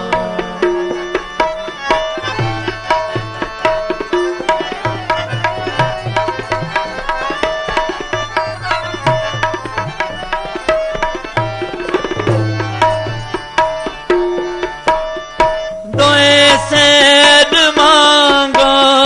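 Tabla drumming over steady held harmonium notes in an instrumental passage of Sikh kirtan. About three-quarters of the way through, singing comes back in and the music grows louder.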